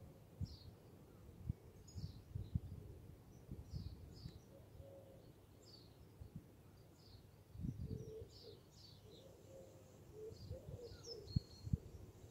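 Faint small birds chirping, many short high chirps throughout, with some lower wavering calls in the second half. Soft low knocks from the brush and hand work on the stretched canvas, the sharpest about eleven seconds in.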